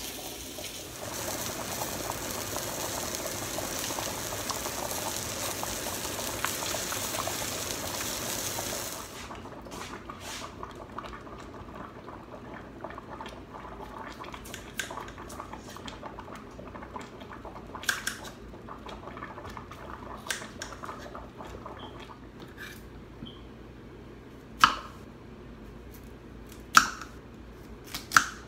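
Beef roast sizzling in a skillet, a steady hiss that cuts off suddenly about nine seconds in. Then it is quieter, with scattered light knocks, and near the end a knife chops through carrots on a cutting board with three sharp knocks.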